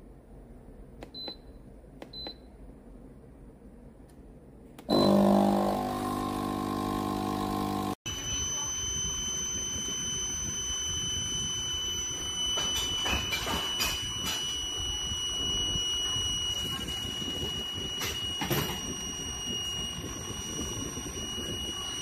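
Two short beeps from a capsule coffee machine's buttons, then about five seconds in its pump starts with a loud buzz. It then runs on steadily, with a high steady whine over a noisy hiss and a few clicks, as coffee dispenses into the cup.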